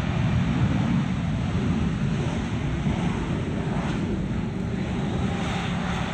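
Airbus A320 jet airliner's engines and airflow rumbling deep and steady as it rolls down the runway just after landing, the noise easing slightly as it goes.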